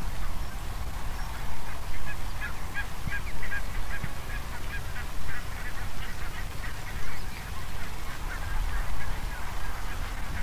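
A dense chorus of short animal calls, many a second, over a low rumble, fading near the end.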